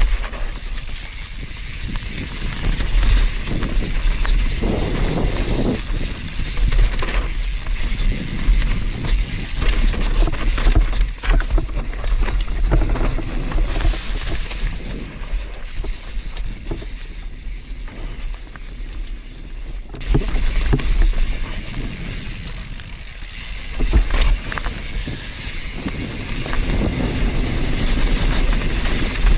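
Mountain bike descending a dirt trail at speed: tyres rolling over loose earth and the bike rattling over bumps, with wind buffeting the microphone as a low rumble.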